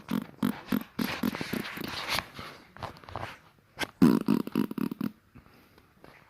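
Fart sounds: a quick run of short sputtering blasts, then a louder, longer drawn-out one about four seconds in that fades away.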